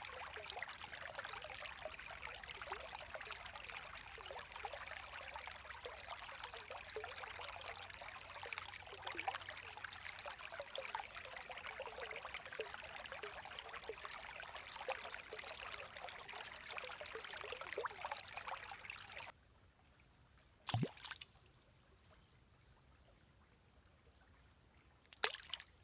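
Forest stream trickling steadily, recorded on a Zoom H1n handheld recorder. It cuts off abruptly about three-quarters of the way through, leaving a faint background broken by two short, sharp knocks.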